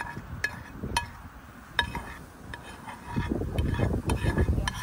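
A utensil knocking and scraping inside a frying pan as leftover food is cleared out: a few sharp clinks, each leaving the pan ringing briefly. A low wind rumble on the microphone rises in the second half.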